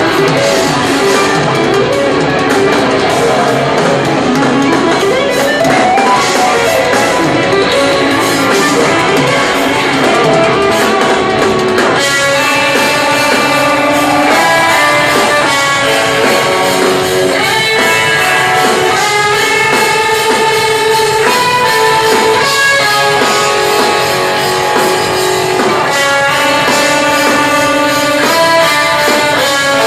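Live instrumental progressive metal: eight-string electric guitars playing intricate lines over a drum kit. About twelve seconds in, a dense, busy passage gives way to clearer, ringing guitar notes.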